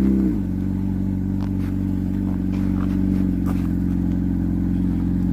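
Steady motor hum with a rich stack of low tones, its pitch dropping slightly just after the start and then holding level, with a few faint clicks over it.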